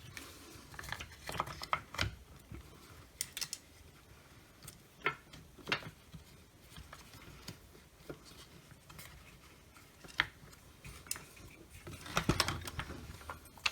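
Scattered clicks, taps and short scrapes of circular saw parts being handled and pushed into place during reassembly, with a busier run of clicks near the end.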